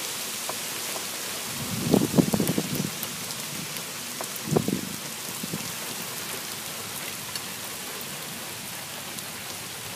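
Rain falling steadily, an even hiss throughout. There are two short clusters of louder, lower thuds about two seconds in and again about four and a half seconds in.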